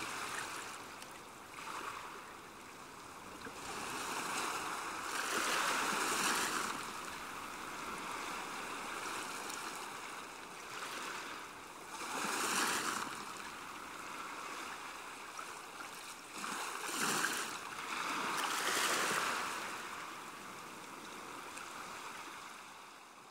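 Waves washing in, swelling and easing several times, fading away near the end.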